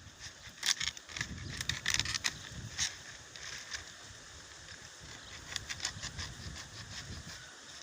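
Scattered clicks and knocks with rustling from hands working the boxes of a cage being built, the clicks densest in the first three seconds, over a low rumble.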